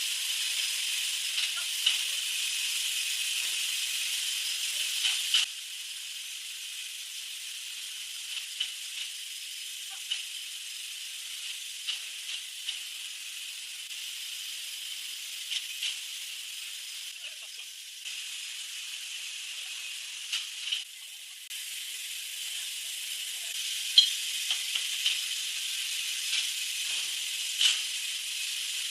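Saw cutting lengthwise through wood: a steady high hiss of the blade in the cut with scattered small clicks, dropping in level about five seconds in and rising again a little after twenty seconds.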